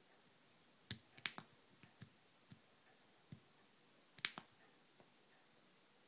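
Small plastic clicks from a thumb joystick module being pushed and pressed: a quick cluster about a second in, a few softer single ticks, then a second cluster about four seconds in.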